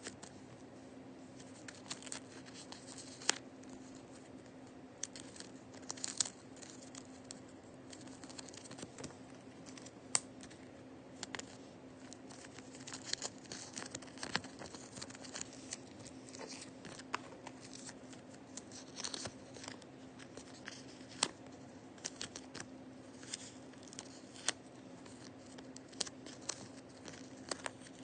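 Paper being handled, crinkled, torn and snipped as a handmade paper blind bag is opened: many short, irregular rustles and sharp clicks, over a faint steady hum.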